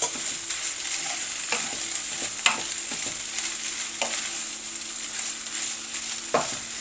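Lamb fried rice sizzling in a non-stick frying pan as a wooden spatula stirs and scrapes through it, with about five sharp knocks of the spatula against the pan.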